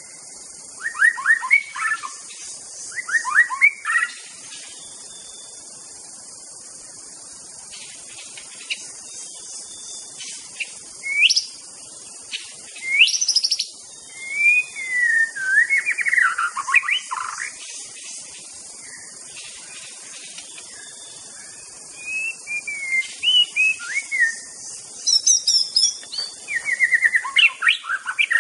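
White-rumped shama singing in separate bursts of rich whistled phrases, some rising sharply and some warbling downward, with pauses of a few seconds between them. There are three quick phrases at first, then a quiet stretch of about six seconds before the song resumes. A steady faint high hiss runs underneath.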